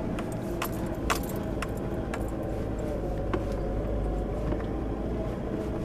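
Four-wheel drive vehicle driving slowly on a dirt track, heard from inside the cabin: a steady low rumble of engine and tyres, with light rattles and jangles of loose items such as keys every second or so.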